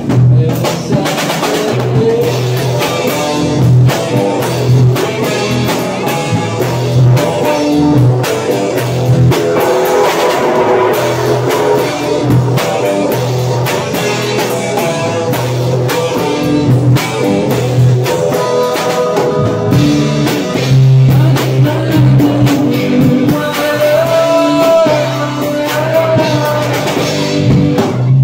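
Live rock band playing: distorted electric guitars and a drum kit, with a male voice singing.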